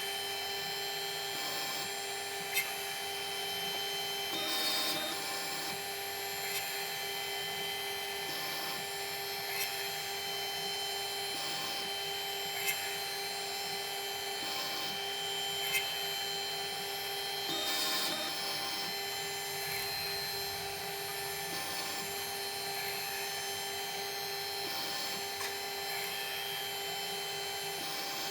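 Machine tool running steadily with a cutter working metal. Its note changes regularly every three to four seconds, with a few sharp clicks.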